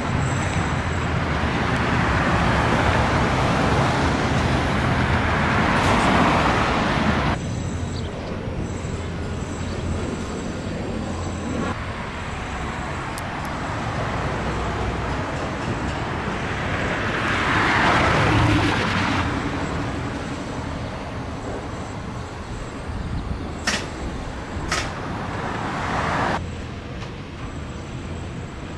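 Street traffic: vehicles passing one after another, with the loudest passes swelling up and fading about six and eighteen seconds in. A couple of sharp clicks come late on.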